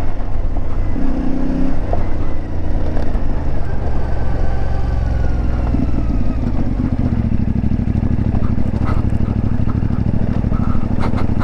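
CFMoto 450MT's parallel-twin engine running as the motorcycle is ridden, at fairly steady revs, with the engine note shifting about halfway through. A few light clicks come near the end.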